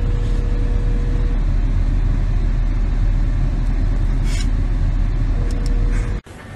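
Steady rumble of a car heard from inside the cabin, heavy in the low end, with a brief hiss about four seconds in.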